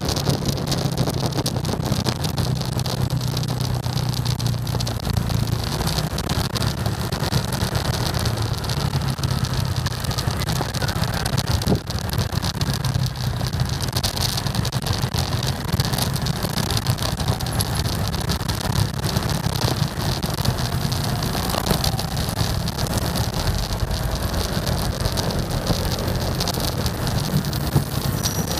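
Motorcycle engine running while riding through road traffic, under a steady rush of wind on the microphone; the engine hum shifts in pitch as the speed changes.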